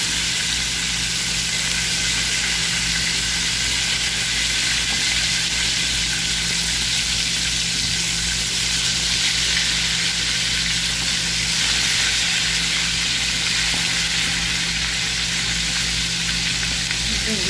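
Chicken drumsticks deep-frying in hot oil in a pan: a steady sizzle.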